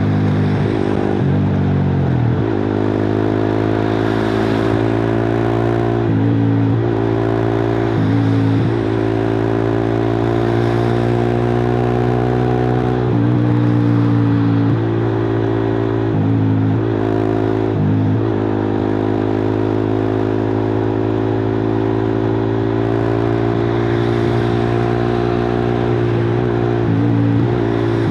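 Suzuki GSX-R150's single-cylinder engine through a cut-open exhaust, riding and accelerating through the gears. The engine note climbs steadily, drops sharply at each gear change, then climbs again; there are several quick changes in the middle and a long pull from just past the middle to near the end.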